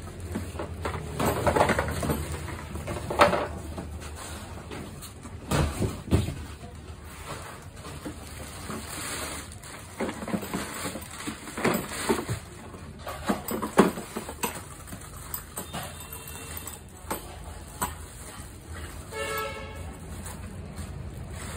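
Clear plastic packaging bags crinkling and rustling as they are pulled off the plastic body and parts of a children's ride-on electric scooter, with a few hard knocks of plastic parts on a tile floor and a brief squeak near the end.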